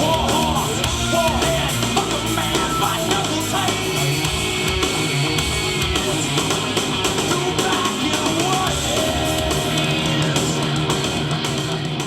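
Rock track with electric guitar and drums played back through a Beta3 R8P portable PA speaker for a sound test.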